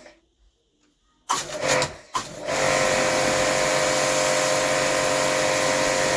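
Electric high-pressure washer starting up: two short bursts of motor and spray, then it runs steadily with a constant hum from about two and a half seconds in.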